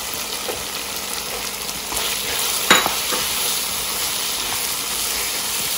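Mutton pieces in masala frying in oil in a karahi, sizzling steadily while being stirred and scraped with a spatula at the bhuna stage, where the meat is fried down until dry. One sharp clack a little under three seconds in.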